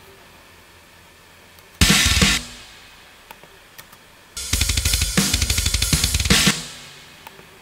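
Software drum kit playing back a MIDI drum pattern of kick, snare, hi-hat and cymbals. It plays in two short stretches: a half-second snatch about two seconds in, then about two seconds of steady beat from just past halfway. Each stops abruptly and rings off.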